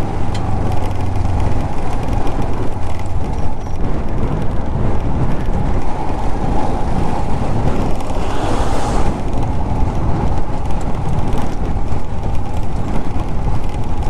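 Royal Enfield Himalayan 411's single-cylinder engine running steadily while under way, under a constant rush of riding noise. There is a brief hissing swell about eight seconds in.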